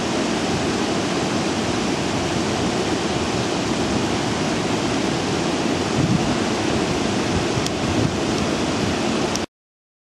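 Steady outdoor rushing noise that stops abruptly near the end.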